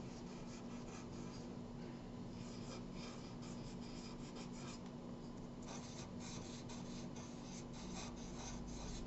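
A felt-tip marker scratching on paper in many short, irregular strokes, faint, as small flower shapes are drawn.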